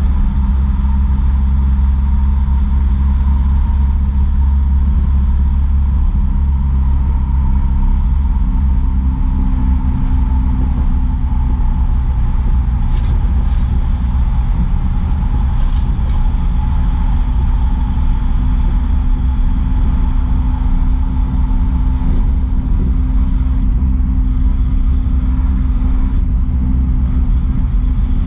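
Truck engine running steadily while driving, its low note holding even throughout, with road noise.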